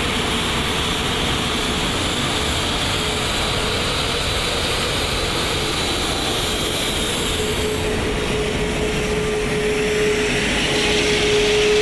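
Airbus A380's Rolls-Royce Trent 900 jet engines running steadily at taxi power: an even rush with a steady mid-pitched whine, growing a little louder near the end.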